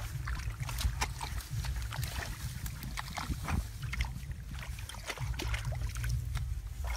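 Low, steady rumble on the microphone with many small scattered clicks and rustles.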